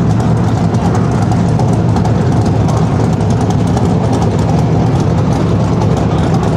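Dirt-track race car engines running together, a loud steady drone with no single car standing out.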